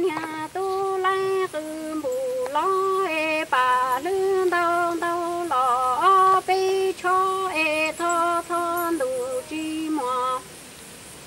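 A woman singing Hmong kwv txhiaj (traditional sung poetry), a single voice with no other part heard, moving in steps between a few long held notes with short breaths between phrases. She stops a little before the end.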